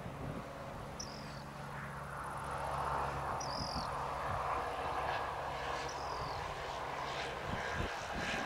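Steady jet aircraft noise: a low hum with a broad rushing sound that swells about two seconds in and holds. A bird gives a short falling chirp every two to three seconds.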